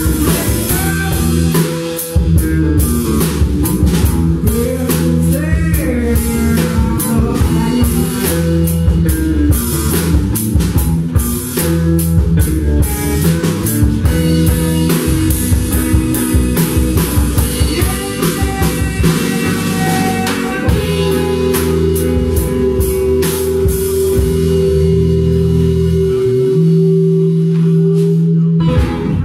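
Live blues-rock band playing: electric guitar and drum kit over sustained chords. The song ends on a long held chord that cuts off near the end.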